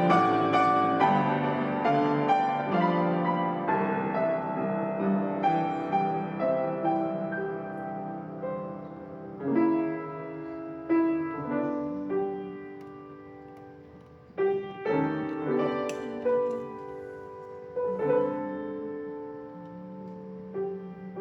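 Solo piano playing slow, quiet chords and melody notes, each struck and left to ring, softening about two-thirds of the way through before new chords come in.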